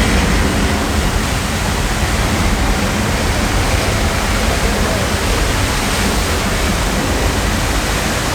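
Staged flood effect: a torrent of water rushing steadily through the set, with a deep rumble underneath.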